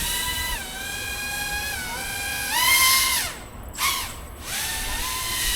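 3D quadcopter's electric motors and propellers whining, the pitch stepping up and down with the throttle, dropping away twice in the middle and spooling back up.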